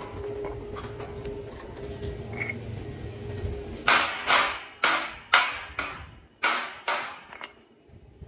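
A low steady hum for the first few seconds, then about seven sharp hammer blows, roughly two a second, each with a short ringing tail.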